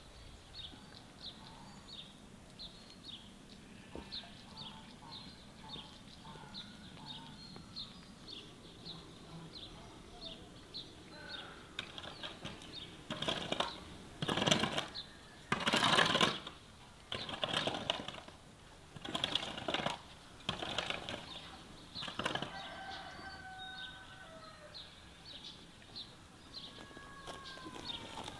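A small bird chirping over and over, about twice a second. In the middle, a run of about seven loud scraping strokes of a long-handled garden tool on the ground, each about a second apart.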